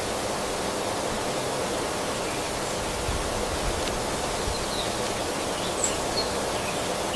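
Outdoor ambience: a steady, even rushing noise with a few faint, short high chirps near the middle.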